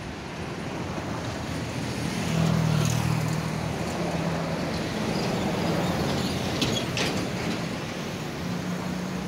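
Low, steady rumble of an unseen aircraft's engines, swelling about two seconds in and then holding. A couple of brief clicks sound near the end.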